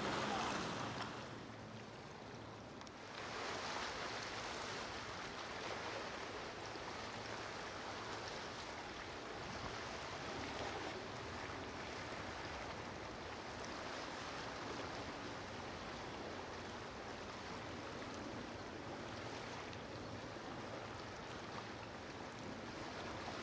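Steady rush of waves and churning water in an ocean inlet, dipping for a couple of seconds about a second in and then holding steady.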